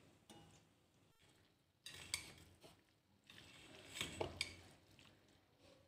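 Chopsticks clinking and scraping against a stainless steel bowl as noodles are tossed in sauce, in a few short faint bursts, the loudest about four seconds in.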